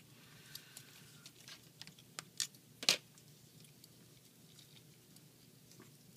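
Plastic action-figure parts being handled: a handful of light clicks and taps in the first three seconds, the loudest near three seconds in, then only faint handling.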